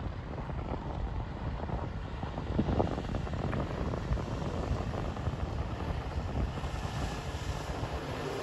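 Wind buffeting the microphone over an outboard motorboat running at speed, its engine and water hiss growing stronger in the last couple of seconds as it approaches.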